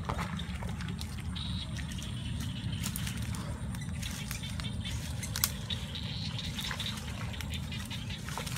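Footsteps wading through shallow water, with small splashes and drips, over a steady low rumble. A single sharp click about five and a half seconds in.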